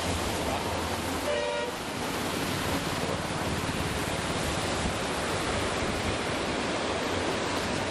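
Steady rushing noise of the Godavari in heavy flood, fast-flowing water streaming past the bridge piers. A vehicle horn toots briefly about a second and a half in.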